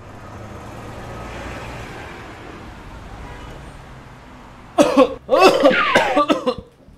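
Steady traffic noise with a low hum, then about five seconds in a person coughs hard several times in quick succession.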